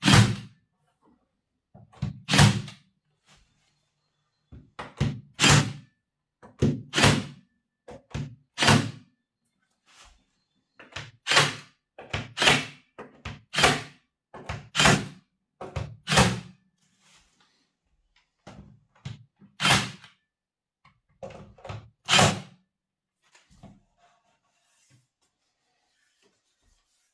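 Cordless pin nailer firing pins into a pine shelving upright again and again: about fifteen sharp shots at irregular gaps of one to three seconds, some in quick pairs.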